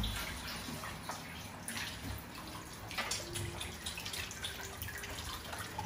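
Kitchen tap running into a stainless steel sink while hands rinse something under the stream, with a few light knocks.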